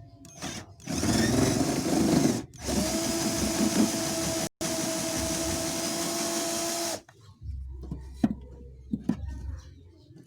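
Cordless drill with a 10 mm socket running in spurts, backing out the wiper motor's mounting screws: a steady whirring whine of about six seconds, broken twice for a split second, stops suddenly, followed by a few light clicks.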